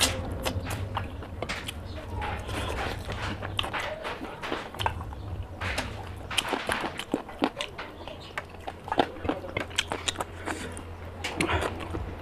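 Close-miked chewing of a mouthful of rice and chicken curry eaten by hand: many sharp, wet mouth clicks and smacks. A low steady hum runs underneath.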